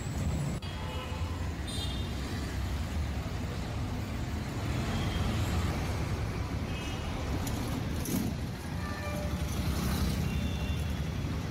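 City street traffic: a steady rumble of engines and road noise from passing auto-rickshaws, vans and motorcycles.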